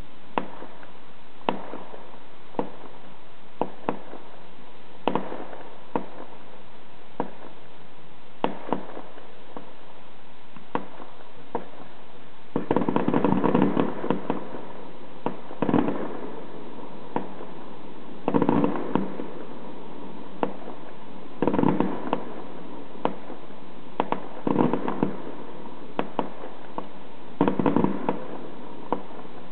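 Fireworks going off: single sharp bangs every second or two, then from about halfway, bursts of rapid crackling bangs every few seconds.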